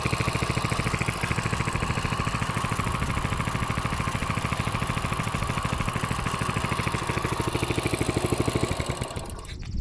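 Coleman CC100X mini bike's small single-cylinder four-stroke engine idling with a steady, even pulse. It stops near the end.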